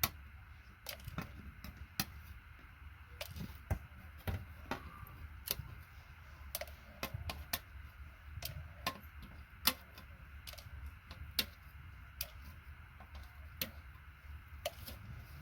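Side cutters snipping the LEDs off a keyboard circuit board: a run of sharp, irregular clicks, roughly one or two a second.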